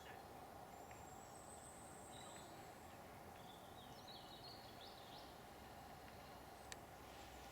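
Faint birds chirping over quiet outdoor background noise, with a thin high whistle in the first half and a single sharp click near the end.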